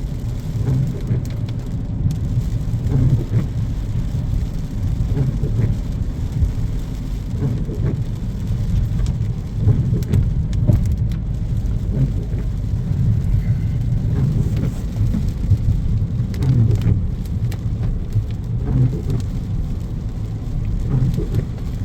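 Car driving through standing floodwater, heard from inside the cabin: a steady low road and engine rumble with the hiss of water sprayed up by the tyres.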